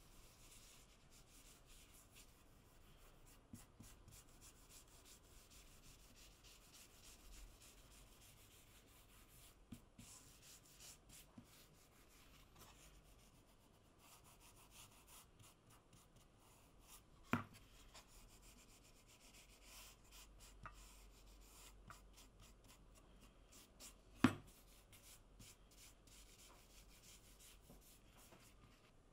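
Faint scratchy rubbing of a cloth working antique wax into a bare wooden board. Two sharp taps stand out, the second about seven seconds after the first and the louder.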